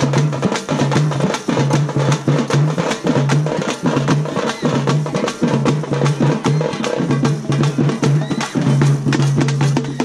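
Festival drum band playing: large rope-tensioned bass drums and smaller drums beaten with sticks in a fast, steady, continuous rhythm, loud and dense.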